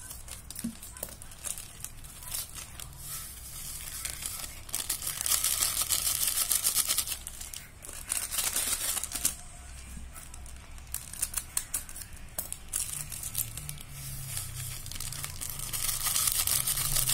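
Plastic packets of pellet fishing bait crinkling and tearing as they are opened and emptied, in several bursts of dense crackling, loudest about five to seven seconds in and again near the end.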